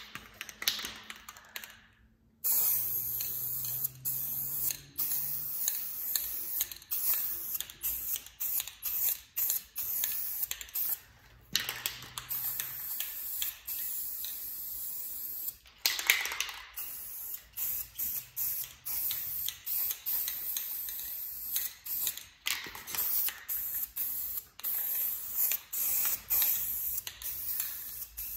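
Aerosol spray paint can hissing in repeated short bursts, starting about two seconds in.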